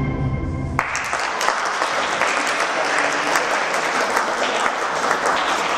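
Classical music stops abruptly on its final note about a second in. An audience then applauds steadily.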